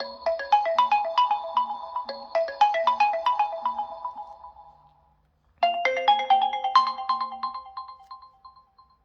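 Realme GT 5G phone ringtones: a melody of quick, bright notes fades out about halfway through, then after a brief silence a second ringtone starts with quick notes and fades away near the end.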